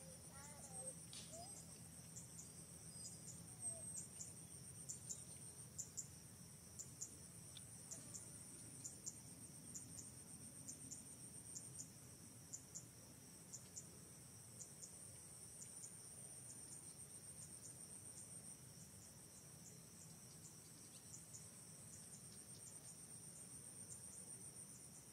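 Faint, steady high-pitched insect trilling in the forest, with short chirps repeating about once or twice a second.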